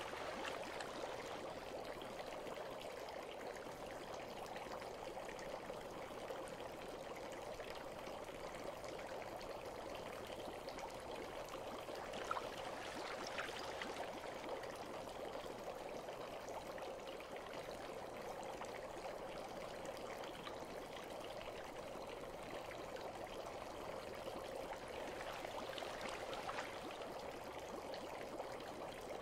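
Bath water trickling and flowing in a steady, gentle stream. There is a single small tick about twelve seconds in.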